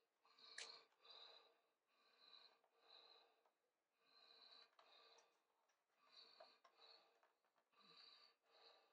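Near silence: faint breathing that comes and goes, often in pairs, with a few faint clicks from the plastic clips of a laptop's bottom cover being pried loose.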